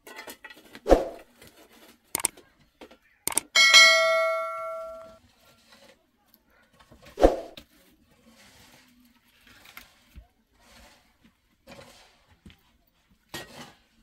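A few sharp knocks and thumps, and one clang of a metal object that rings for about a second and a half before fading.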